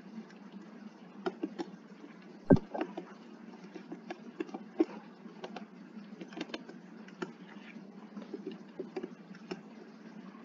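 Computer keyboard being typed on slowly and unevenly, a few keystrokes a second, with one louder knock about two and a half seconds in, over a steady low hum.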